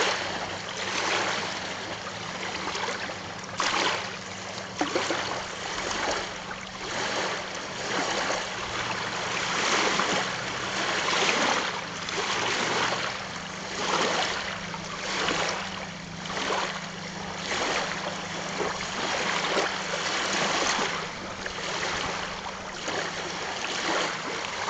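Small freshwater waves lapping and breaking over the stones of a loch shore, surging in every second or two.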